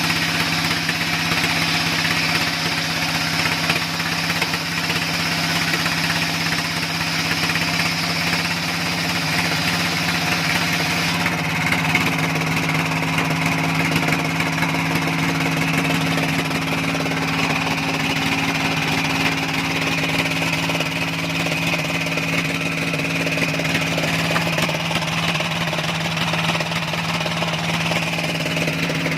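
An engine running steadily at a constant speed. About eleven seconds in, a high whine in the mix stops and the engine's note shifts slightly.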